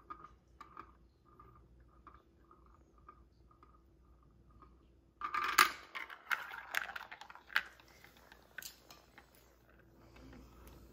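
A plastic marble rolling around the funnel bowl of a VTech Marble Rush run with soft, regular ticks. About five seconds in it drops through with a sudden clatter and rattles on down the plastic track in a quick series of clicks and knocks.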